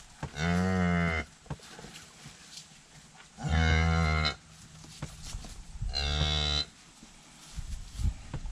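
A cow mooing three times, each a low, drawn-out moo of about a second, spaced a few seconds apart.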